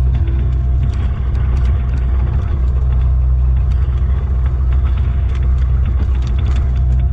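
John Deere 50G compact excavator's diesel engine running steadily under working load, heard from inside the cab. Scattered sharp cracks and clicks come through as the toothed bucket works through brush.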